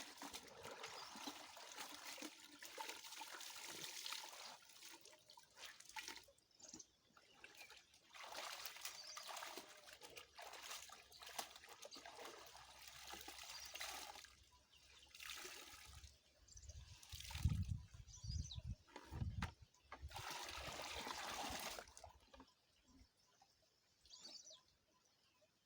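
Water splashing and trickling in irregular spells as clothes are hand-washed in a stream, with a few dull thuds about two-thirds of the way through.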